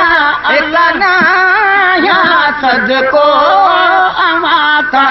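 Men's voices singing a devotional Molood (praise of the Prophet) in a long, wavering, ornamented melodic line, without a break.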